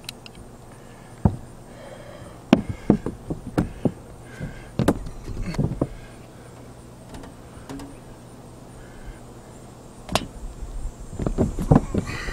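Handling noises: scattered knocks, taps and rustles as a caulk gun and a rubber roof flashing boot are handled and the boot is set down over a metal flue pipe. The knocks come in a cluster a few seconds in and again near the end.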